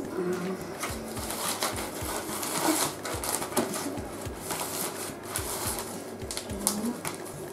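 Plastic zip-lock freezer bag crinkling, its zip seal clicking as it is pressed shut and the bag smoothed flat to push the air out: many small irregular clicks and crackles.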